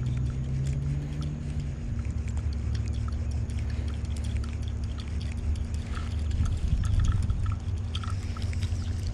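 Wind rumbling on the microphone, with a steady low hum under it and scattered faint ticks.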